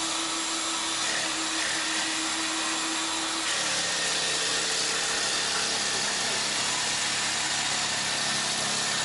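Ryobi CJ-250 electric jigsaw, mounted in a homemade automatic cutting rig, running steadily as it saws plywood. About three and a half seconds in, its motor tone drops to a lower pitch.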